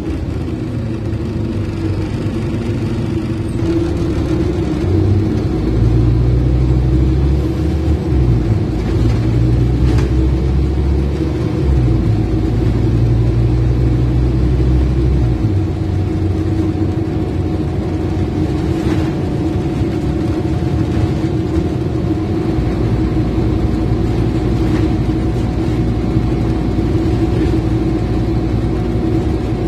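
Scania N230UD OmniCity bus heard from inside the saloon while driving: its nine-litre five-cylinder diesel engine works harder from about five seconds in, its note changing in a few steps. After about fifteen seconds it settles back to a quieter cruise. A steady hum runs under it all.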